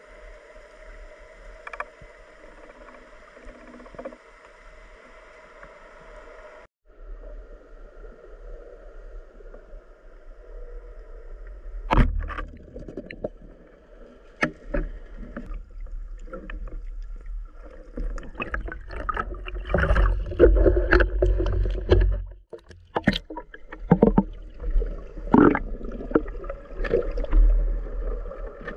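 Water sloshing and splashing with irregular knocks and thumps. It is quieter and steadier for the first several seconds, then grows louder and choppier from about a third of the way in.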